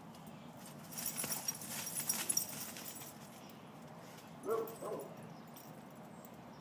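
Peruvian Inca Orchid dogs hunting a rat: a burst of scrabbling, rustling noise for about two seconds, then a short dog whine about four and a half seconds in.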